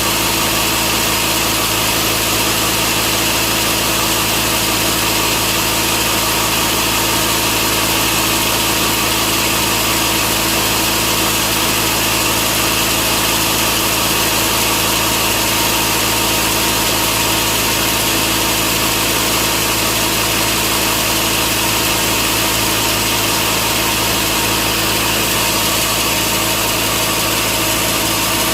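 Sawmill machinery running steadily: a constant, loud engine-like hum with several steady tones and no change in level.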